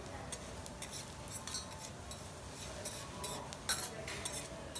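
A steel spatula and scraper tapping and scraping on a flat steel teppanyaki griddle as fried garlic is chopped and pushed around for garlic rice. It is an irregular run of sharp metal clicks and scrapes over a faint sizzle.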